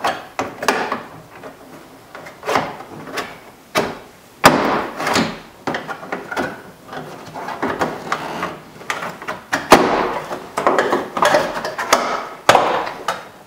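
Plastic trim-panel retaining pins snapping out of a Toyota 4Runner's front door as the panel is pried away from the door. A series of sharp snaps and knocks, the loudest about four and a half and ten seconds in.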